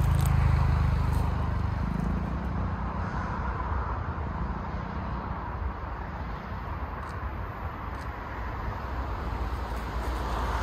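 Steady low rumble of passing vehicles, heaviest in the first couple of seconds, easing off and building again near the end, with a few faint clicks.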